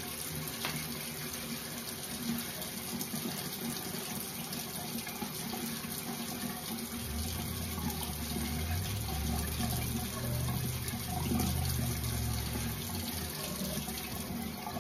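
Bathroom sink tap running steadily into the basin, with a low hum over the middle few seconds.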